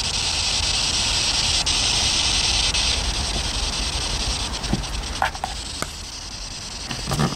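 Spirit box sweeping through radio frequencies: a steady static hiss, loudest over the first few seconds, broken later by faint clicks and brief snatches of tone.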